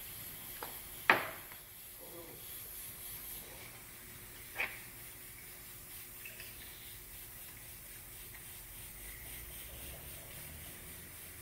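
Faint steady hiss of an airbrush spraying paint, broken by a sharp knock about a second in and a smaller one about four and a half seconds in.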